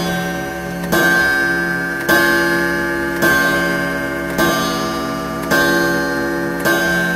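Clock-ticking sound effect: a loud, ringing tick about once a second over a steady sustained tone, each tick dying away before the next.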